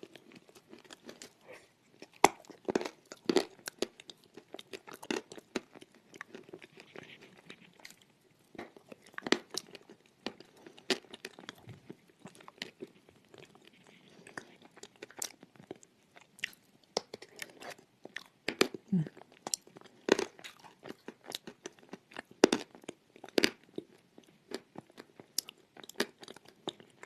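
Close-miked biting and chewing of pieces of edible clay: irregular crisp crunches, some sharp and loud, with softer grinding between them.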